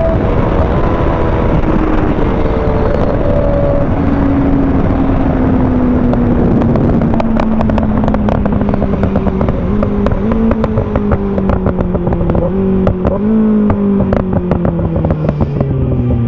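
Kawasaki ZX-6R's inline-four engine heard onboard, its revs falling steadily as the bike slows, with a few small rises in revs partway through. Sharp crackling pops run through the second half over low rushing noise.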